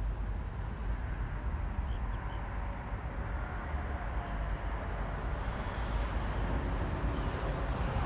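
Steady low rumble of a vehicle engine running, with a faint steady tone above it.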